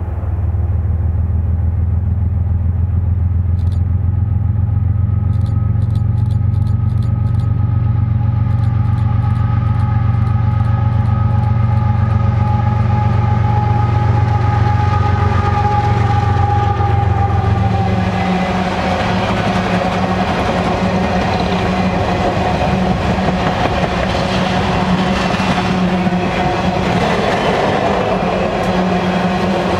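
Canadian Pacific GE ES44AC diesel-electric locomotive with a GEVO-12 engine approaching and passing at the head of an empty coal train. Its deep engine hum has steady tones above it that drop in pitch as it goes by, about 16 seconds in. After that the empty coal cars roll past, their wheels and rails making a steady hiss and clatter.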